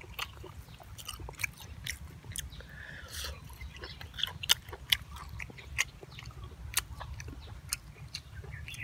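Close-up eating sounds of a person chewing grilled sausage with the mouth open: irregular wet clicks and smacks, several a second, over a steady low rumble.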